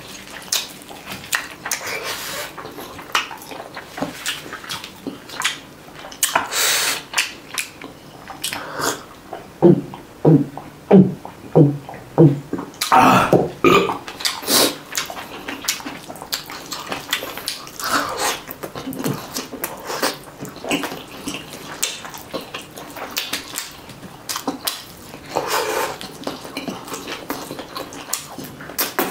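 Close-miked wet chewing and lip-smacking while eating chicken and rice by hand, with squelching as fingers work through the rice. About ten seconds in comes a string of short low throat sounds.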